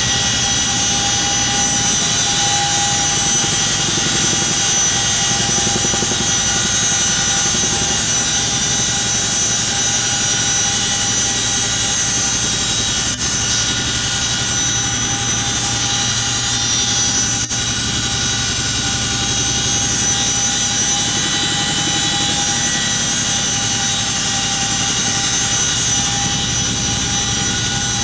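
Cabin noise of a CH-47 Chinook twin-turbine, tandem-rotor helicopter in flight: a loud, steady drone with several steady high-pitched whines riding over it.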